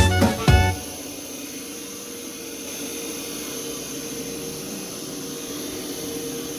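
Carpet-cleaning extraction vacuum running steadily: an even hiss with a faint hum.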